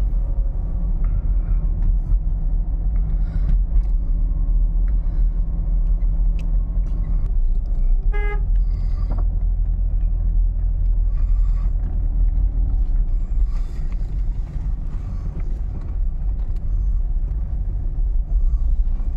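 Car on the road with a steady low rumble of engine and tyres, and one short car-horn toot about eight seconds in.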